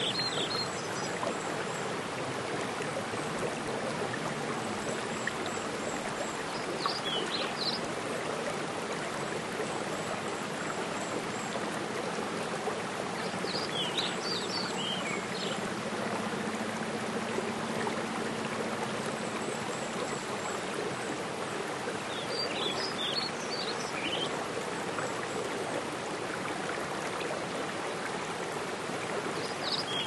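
Mountain stream and small waterfall rushing steadily over rocks. A bird sings a short high chirping phrase about every seven to eight seconds.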